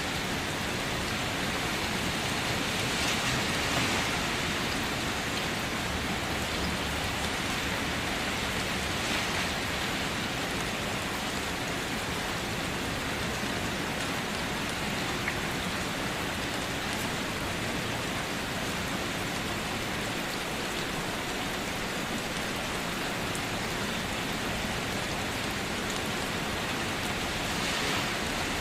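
Steady rain falling, a continuous even hiss that swells slightly about three seconds in and again near the end.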